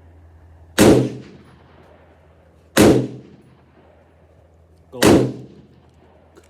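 Rock River AR-15 rifle fired three times, about two seconds apart, each sharp shot trailing off in a fading echo.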